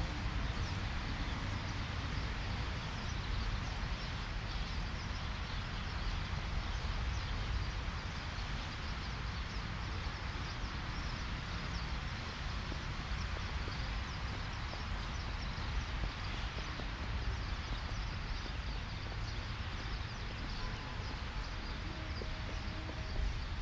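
Outdoor ambience in a blizzard: wind buffeting the microphone in a steady low rumble, with footsteps crunching in snow.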